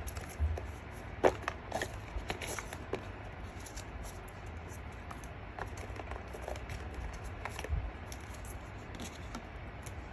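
Scattered light clicks and small handling noises, busiest in the first few seconds, over a steady low hum.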